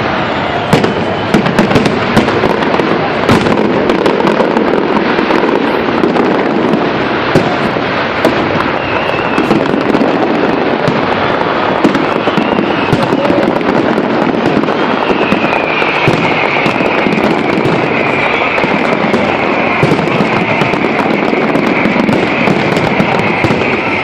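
Fireworks display going off in dense succession: a continuous mass of crackling pops and bangs with no let-up. A high whistling tone comes in past the middle.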